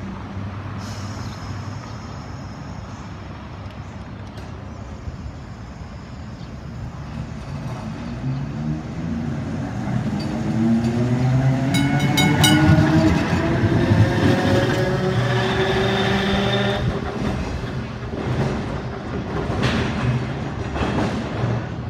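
A 1920s Perley Thomas electric streetcar pulling away and passing close by on its rails, its traction motors whining up in pitch as it gathers speed. A quick burst of sharp metallic clicks comes about midway, as the car is at its loudest.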